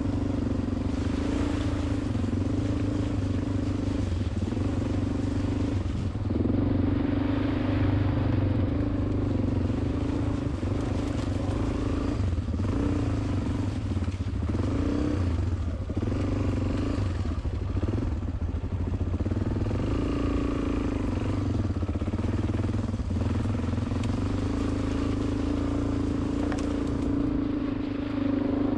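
Motor vehicle engine running steadily while driving along an off-road track. It hums continuously, with small rises and dips in pitch as the revs change.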